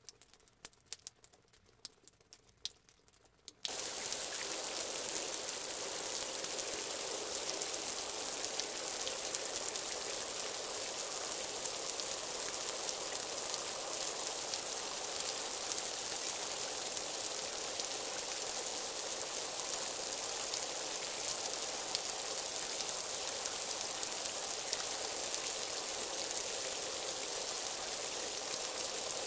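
For the first few seconds, only faint scattered small ticks. About three and a half seconds in, a steady hiss of heavy rain begins abruptly and runs on evenly.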